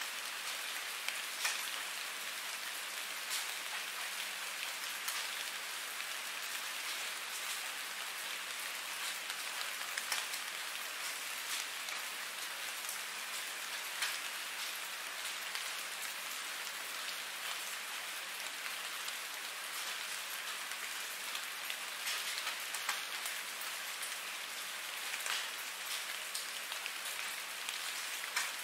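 Steady rain falling: an even hiss with scattered, slightly louder drop ticks.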